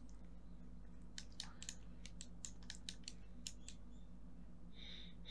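About a dozen sharp clicks of computer input in a quick, uneven run, over a steady low hum.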